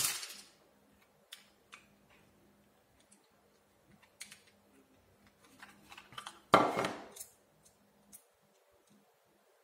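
Small hardware being handled: a rattle of small metal nuts picked from a plastic parts bin at the start, then scattered light clicks as nuts are pressed into a 3D-printed plastic fender, and a louder clatter about six and a half seconds in.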